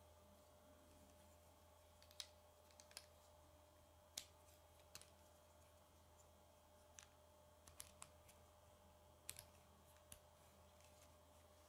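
Plastic K'nex rods and connectors clicking and snapping together as pieces are fitted by hand: a faint series of scattered sharp clicks, spaced irregularly about a second apart.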